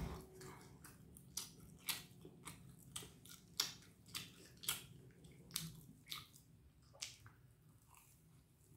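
Faint close-up chewing of a fried rice-batter hot dog: a string of short mouth clicks, about two a second, that stops about seven seconds in.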